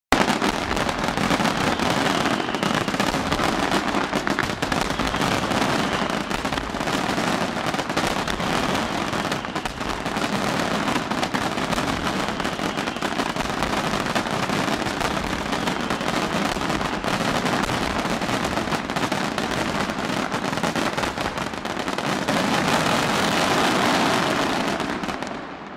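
Fireworks display: a dense, continuous barrage of shells bursting and crackling together, fading away near the end.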